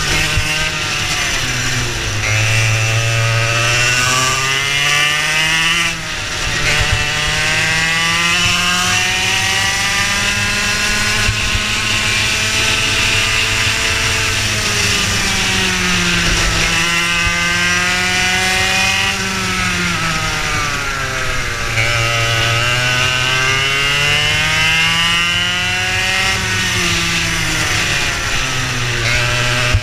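Racing kart engine heard from on board at full throttle, its pitch climbing steadily along each straight and dropping sharply when the driver lifts for a corner, about four times.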